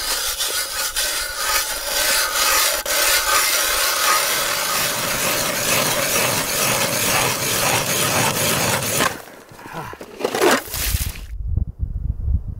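Hand-cranked ice auger boring through lake ice: a steady rasping scrape of the blades shaving ice as it is turned, for about nine seconds. It stops, a short scrape follows a second or so later, then only a low rumble is left.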